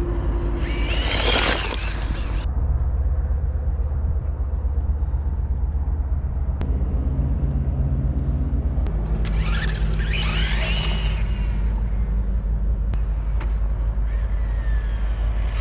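Brushless electric motor and drivetrain of a Tamiya TA02SW-chassis RC car on 3S power whining as the car speeds past, rising then falling in pitch. This happens twice, about a second in and around ten seconds in, over a steady low rumble.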